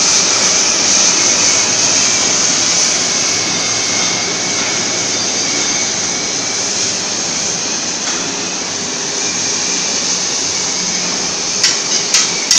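Oxy-fuel cutting torch on a CNC gantry cutter hissing steadily as it cuts through steel plate. A few sharp clicks sound near the end.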